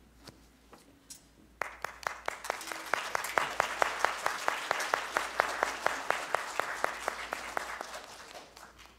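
A congregation applauding. It starts about a second and a half in, swells, and dies away near the end, with one clapper close by keeping a steady beat of about five claps a second.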